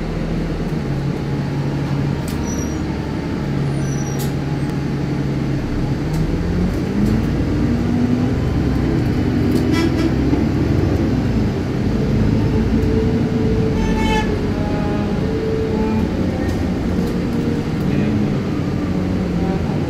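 Bus engine heard from inside the passenger cabin, running at a steady idle, then its note rising and shifting about six seconds in as the bus pulls away and gathers speed. A few short clicks and rattles sound over the engine.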